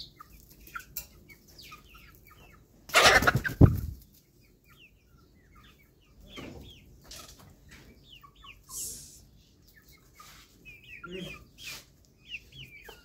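Chickens clucking, with many short high chirps, as a rooster and young hens forage. About three seconds in there is a loud rustling burst lasting about a second.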